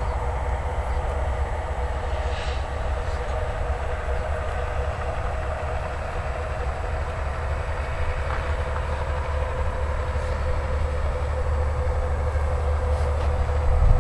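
Steady wind rumble on the microphone, with the steady hum of an RC model airplane's motor and propeller in flight.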